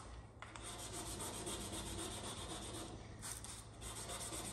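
Hand wet-sanding with 400-grit wet/dry sandpaper on the primed steel cab of a 1972 Chevrolet C10: quick back-and-forth rubbing strokes that start about half a second in, with a short break a little after three seconds. This is the final sanding of the primer before black paint.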